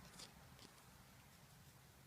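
Near silence, with two faint ticks in the first second.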